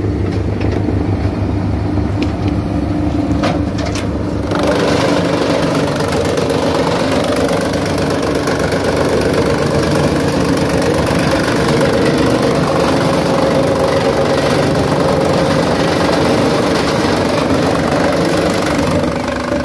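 Tractor engine running steadily, driving a wood chipper. About four and a half seconds in, the chipper starts chewing a green log fed into its hopper, adding a loud, dense noise of wood being shredded that lasts until near the end.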